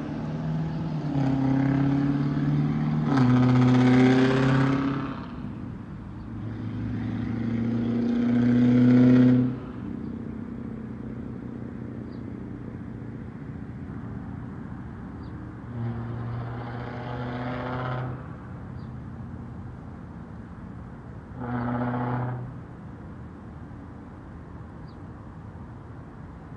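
Straight-piped 6.4-litre HEMI V8 of a Dodge Challenger Scat Pack, with catless mid-pipes and no mufflers or resonators, revving hard in several surges. The loudest surge ends abruptly about nine seconds in, and fainter surges follow around 16–18 s and 22 s over a lower steady engine sound.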